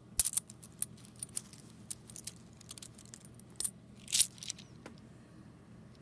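U.S. quarters clinking against one another as they are handled, a string of sharp, irregular metallic clicks. The loudest clicks come just after the start and about four seconds in, and they die away after about five seconds.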